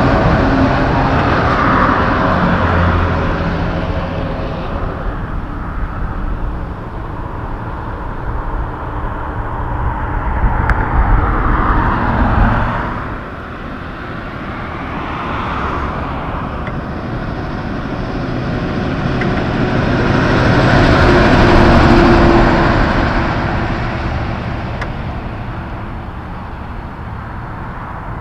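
Highway traffic. A two-trailer tanker semi's diesel engine and tyres fade as it pulls away, then further vehicles swell and fade as they pass, once near the middle and again later on.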